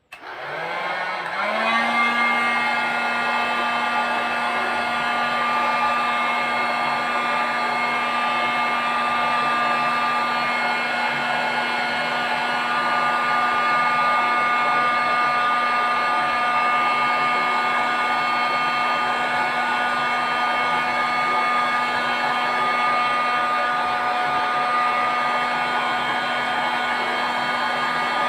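Industrial heat gun switching on, its fan spinning up over about two seconds, then running with a steady, even hum.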